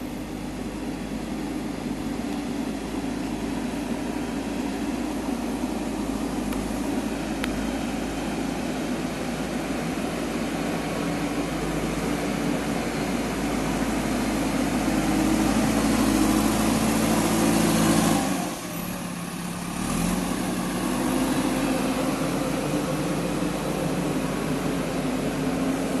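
JCB backhoe loader's diesel engine running under load while the front bucket pushes and carries soil, growing louder as the machine comes closer. The low engine sound drops away briefly about two-thirds of the way through, then comes back.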